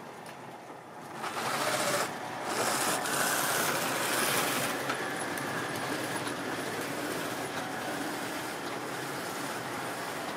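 Model railway train running on the track, its small electric motor and wheels making a steady mechanical rattle. It gets louder about a second in, then settles.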